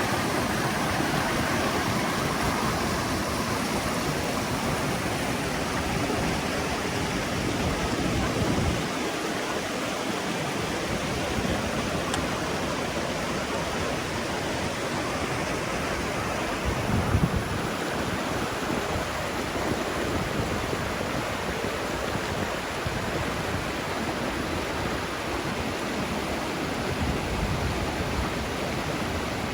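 Mountain creek water rushing steadily, a full even hiss, with an uneven low rumble beneath it and a brief knock about seventeen seconds in.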